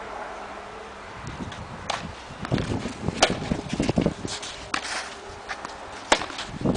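Tennis rally on a clay court: sharp pops of the ball struck by rackets, the loudest about three seconds in and again about six seconds in, with scuffing footsteps on the clay between the shots.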